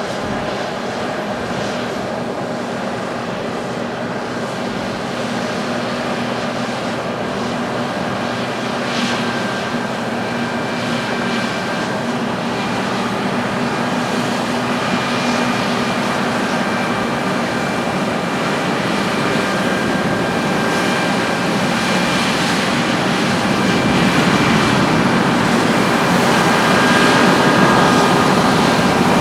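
Heavy farm harvesting machinery running: a steady engine drone with a few held whining tones, growing gradually louder toward the end.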